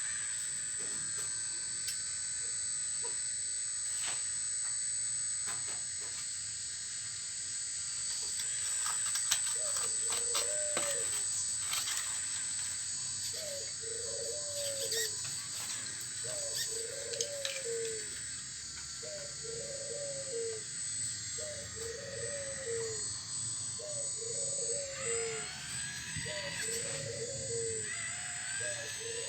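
The whine of a home-built full-metal RC excavator's motor, steady throughout, with scattered clicks and scrapes from its bucket working rock and soil. From about ten seconds in, a dove coos over and over, about once every second and a half.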